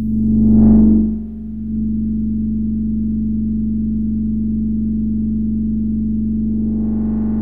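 Eurorack modular synthesizer drone from two oscillators shaped with a joystick. The drone is a low, steady pitched tone that swells and brightens briefly at the start, settles into a steady hum, and begins to brighten again near the end.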